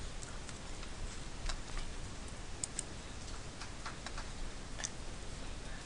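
Computer mouse clicking, faint and irregular clicks, over a steady low hum and hiss.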